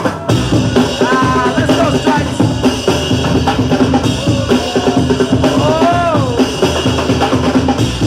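Breakbeat hip-hop music played loud over a sound system, with a driving drum kit beat and short gliding vocal or synth phrases.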